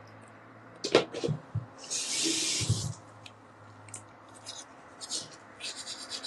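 A sharp knock about a second in, then a spray can hissing for just over a second. Light rubbing and scratching sounds follow near the end.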